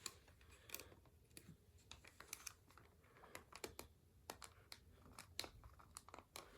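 Faint, irregular clicks and taps of hard plastic toy parts being handled, from a Buzz Lightyear action figure being taken apart.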